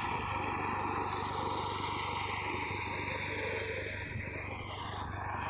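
Old wheat-harvesting machine running steadily: a constant engine hum under an even rushing noise from the working machinery.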